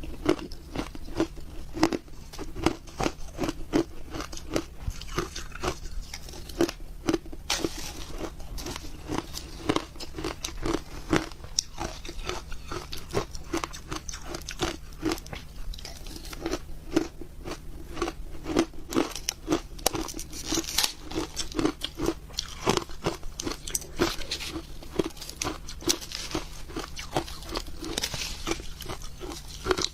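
Close-miked ice eating: shaved ice crunched and chewed in the mouth. Sharp crunches come several times a second, without a pause.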